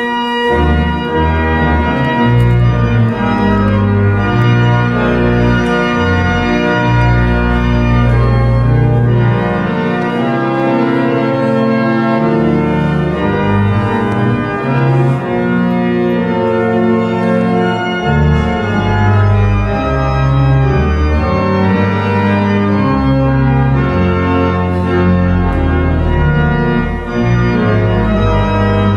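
Church pipe organ playing loud sustained chords over a bass line that moves every second or two.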